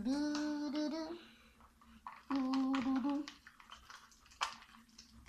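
A voice humming two short phrases of a tune, each about a second long, the second starting about two seconds in; a few faint clicks follow near the end.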